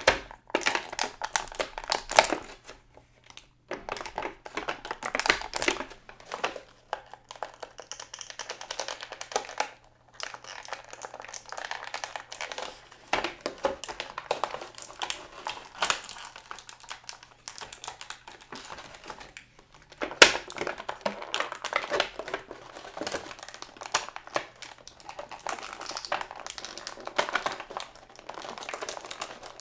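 Plastic action-figure packaging being handled and pulled apart as accessories are freed from it, crinkling and crackling with irregular clicks and a few brief pauses.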